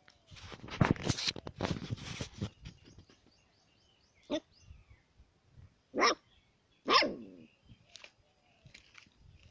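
Puppy yapping in short, sharp play barks: three loud ones about four, six and seven seconds in, and fainter yips near the end. Before them, about two seconds of scuffling noise.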